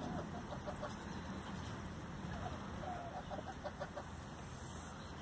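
Chickens clucking in short runs of quick, low clucks while they feed, a few near the start and a longer run about three seconds in.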